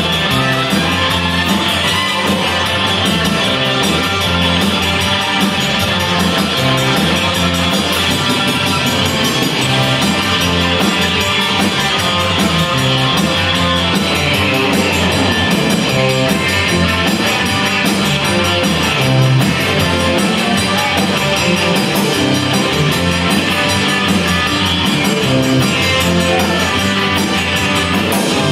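Live Tex-Mex rock band playing at a steady loud level: electric guitars and drum kit, with button accordion, trumpet and keyboard in the band.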